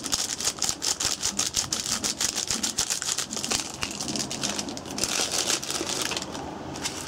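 Plastic seasoning sachet crinkling and rustling as it is squeezed and shaken out over a pot of instant noodles: a dense run of small rapid crackles and clicks.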